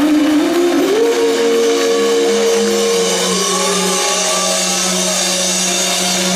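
Live rock band holding a final chord: distorted electric guitars and bass sustain, with one note sliding up about a second in and back down about three seconds in, over a wash of crash cymbals from the drum kit.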